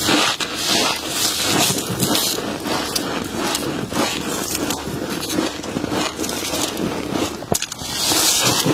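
Humidifier frost crunching and scraping close up: a dense, continuous run of crackly crunches.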